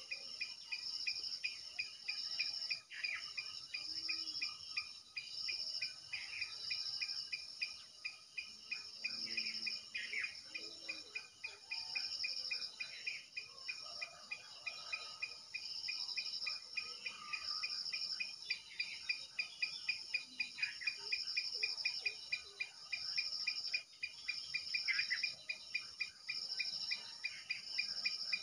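Insects trilling steadily: a high, pulsing trill in repeated phrases about a second long, with a faster ticking trill beneath it and a few short falling calls mixed in.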